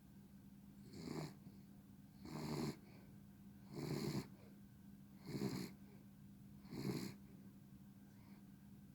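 Dog snoring: five snoring breaths, each about half a second long and about a second and a half apart, over a faint steady hum. The uploader puts this kind of snoring in old dogs down to laryngeal paralysis, a floppy larynx blocking the airflow.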